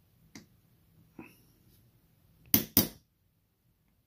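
Small watchmaker's hammer tapping twice, a quarter second apart, on a pin punch, driving a watch bracelet pin back into its link. A couple of faint clicks come first as the punch is set on the pin.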